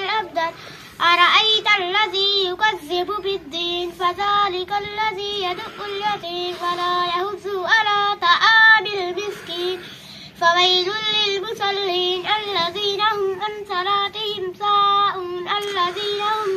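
A young girl reciting the Quran aloud in melodic chant (tilawat), holding and gliding notes phrase by phrase, with short breaks for breath and a longer pause about ten seconds in.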